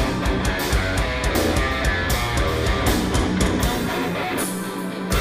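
Live instrumental progressive metal played loud by a band: heavy distorted guitars over drums, with frequent cymbal hits. Near the end the low bass and kick drum drop away briefly.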